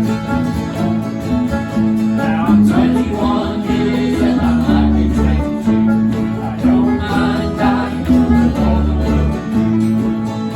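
Acoustic guitar music, plucked notes over a moving bass line.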